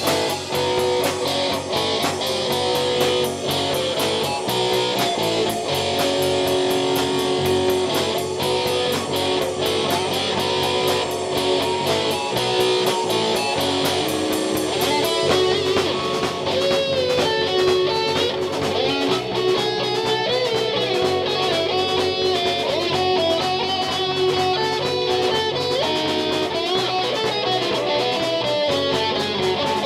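Live rock band playing an instrumental section with no vocals: electric guitar lead lines, with bent notes and quicker runs in the second half, over a steady drum beat and bass.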